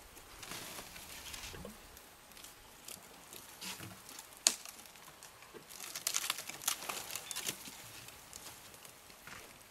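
Elephant bulls feeding on a felled black thorn tree: branches and twigs crackling and snapping as they are broken and stripped. There is one sharp snap about four and a half seconds in and a run of crackling a little later.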